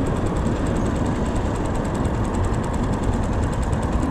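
Boat motor running steadily at low speed, an even engine noise with no change in pitch or level.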